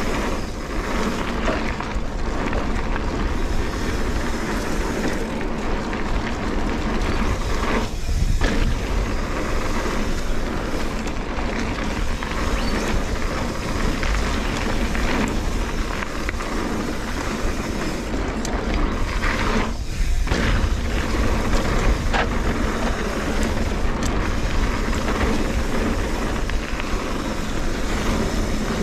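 Trek Fuel EX 8 full-suspension mountain bike riding a dirt trail: steady wind rush on the microphone and tyre rumble, with occasional sharp clicks and knocks from the bike.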